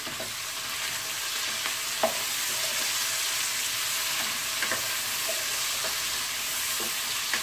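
Drumstick (moringa pod) pieces, onion and green chillies sizzling in hot oil in a pot while being stirred with a spatula. The spatula knocks against the pot a few times, loudest about two seconds in.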